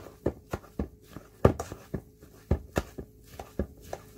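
Hand potato masher pounding boiled potatoes in a stainless steel bowl: a rapid, uneven run of short knocks, about three or four a second.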